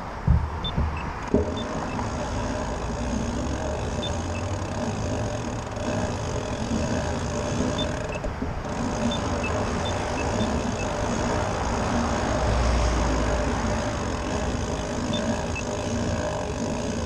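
Road traffic passing through an intersection: cars driving by with steady engine and tyre noise, and a deeper rumble from a heavier passing vehicle about twelve seconds in. Two sharp knocks near the start.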